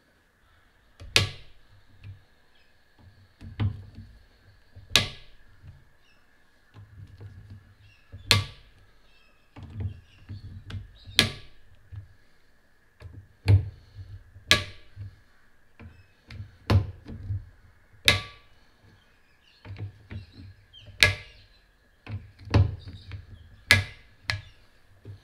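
Torque-limiting screwdriver tightening scope-ring screws to 15 inch-pounds, clicking as its clutch breaks over on each screw in turn: a sharp click every one to three seconds, with low knocks from handling the tool and rifle in between.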